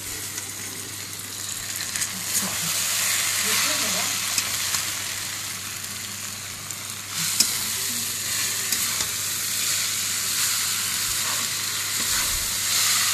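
Chow mein noodles sizzling in a hot metal wok as a metal spatula stirs and tosses them with sauce, the sizzle growing louder about two seconds in. The spatula clinks and scrapes against the pan now and then.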